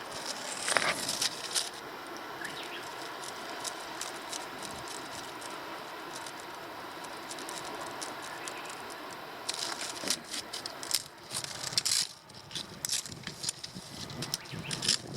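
Dry grass stalks rustling and crackling as they are waved and batted by a cat at play, in quick bursts near the start and again in the second half, with a steadier hiss in between.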